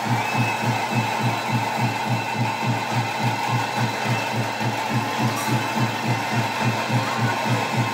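Drum beaten in a fast, even rhythm, about four low beats a second, over a steady background of noise.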